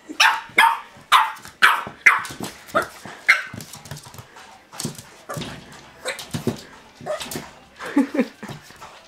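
Boston Terrier barking at its own reflection in a mirror: a quick run of about seven sharp, high-pitched barks over the first three seconds or so, then quieter, lower-pitched sounds with a couple of louder ones near the end.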